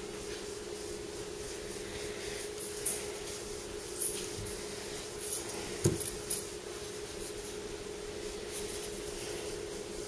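Light handling noise as kitchen knives are picked up off a towel and turned over: a few soft clicks, taps and rubs, the loudest a thump about six seconds in, over a steady low hum.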